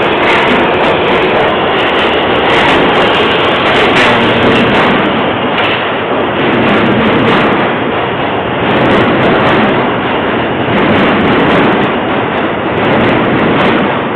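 New York City subway train running past and out of the station: a loud, steady rumble and rattle of steel wheels on the rails, with clacks scattered through it.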